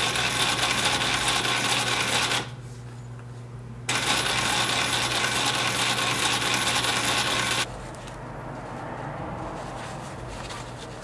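Industrial post-bed sewing machine with a roller presser foot stitching through a nylon and leather sneaker upper: two runs of rapid needle clatter, about two and a half and three and a half seconds long, with a short pause between. A steady low motor hum runs underneath. Near the end the stitched material is rustled by hand.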